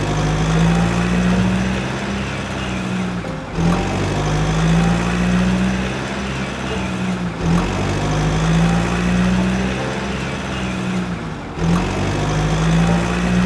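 Truck engine sound effect running steadily. It loops about every four seconds, with a brief break between repeats.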